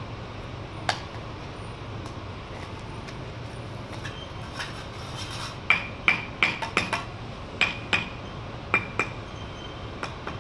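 Sharp metallic clinks of a bricklayer's steel trowel tapping bricks into place on a wall: one strike about a second in, then a quick run of about ten taps in the second half. A low steady hum runs underneath.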